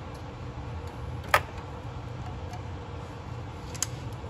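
Two sharp plastic clicks as hose quick-connect fittings on top of the engine are released: a loud one about a second in and a fainter one near the end, over a low steady background hum.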